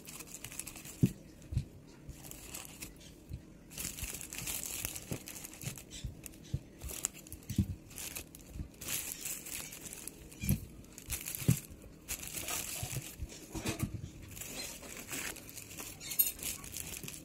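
Woven plastic sack and plastic bags crinkling and rustling as vegetables and fruit are lifted out by hand, with scattered soft knocks of the produce being handled.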